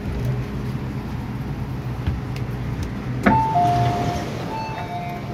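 MTR M-Train stationary with a steady low hum. A little over three seconds in, a click, then the two-note door-closing warning chime alternating high and low twice, the signal that the doors are about to shut.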